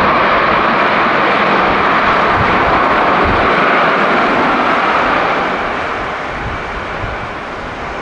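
Airbus A330-300 airliner's jet engines running loud on the runway during the landing rollout, spoilers up: a steady rushing noise that eases off from about five seconds in.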